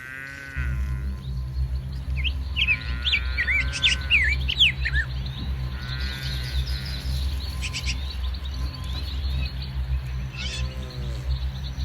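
Birds chirping, with a flurry of quick chirps a few seconds in and shorter calls later, over a steady low drone.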